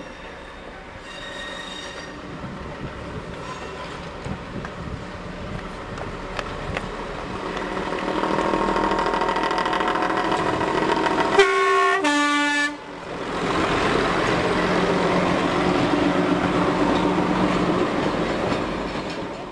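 Class 108 diesel multiple unit approaching and passing, its underfloor diesel engines growing louder as it nears. About halfway through it sounds a two-tone horn, a short high note then a lower one, and its engines stay loud as it goes by before fading near the end.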